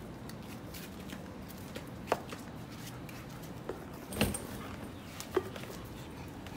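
A German shepherd playing with a hard-plastic handled ball on concrete: three short, sharp clicks and knocks, the loudest about four seconds in, over a steady low background hum.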